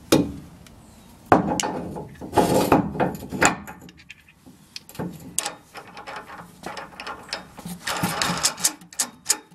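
Metal suspension hardware being handled and fitted: irregular clicks, knocks and short scrapes as the Fox air bump canister's pin and nut are set into the frame mount.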